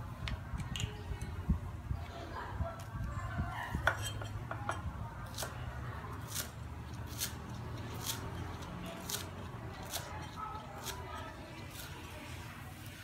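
A cleaver chopping spring onions on a round wooden chopping board, each cut a sharp knock of the blade on the wood, falling about once a second from around five seconds in.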